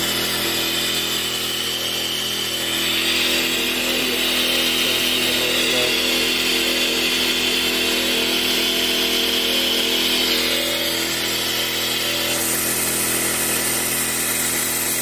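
Compressed-air vacuum brake bleeder running and hissing loudly as it sucks hydraulic oil out of a forklift's hydraulic pickup hose, over a steady hum. The hiss grows stronger a couple of seconds in and eases off again near the end.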